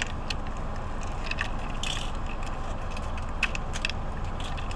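Plastic Trackmaster toy train engine being handled and turned over, giving scattered light clicks and knocks, over a steady low hum inside a car.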